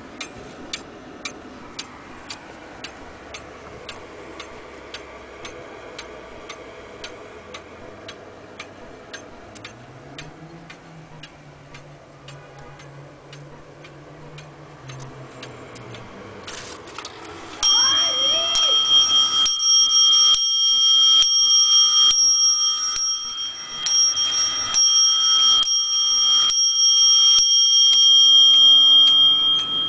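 Vintage Dutch weight-driven wall clock ticking at a steady beat. About two-thirds of the way in it starts striking the hour on its cup bell: a long run of loud strokes about one a second, each ringing into the next.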